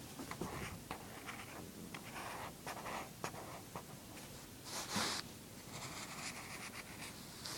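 A drawing tool scratching on paper in short, irregular strokes, with one louder stroke about five seconds in.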